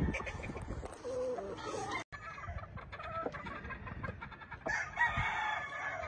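Gamefowl roosters crowing and clucking, with one longer crow near the end.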